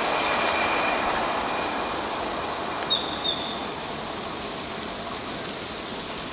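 Passenger train running along the track and moving away, its rumble slowly fading. Two short high squeaks come about three seconds in.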